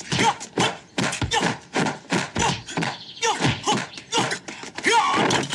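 Kung fu film fight sound effects: a fast, steady run of punch, block and kick hits, about two a second.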